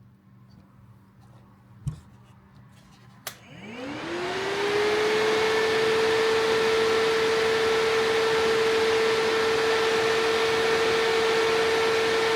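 Electric radiator cooling fan switched on with a click, its motor whine rising as it spins up over a second or so, then running steadily with a rush of moving air; it is powered straight from a jump box to check which way it blows. A low thump comes just before the switch click.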